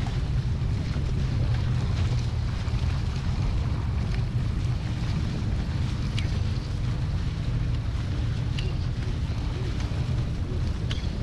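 Steady wind buffeting the microphone over the rush of water and spray along the hulls of a Hobie 16 catamaran sailing fast.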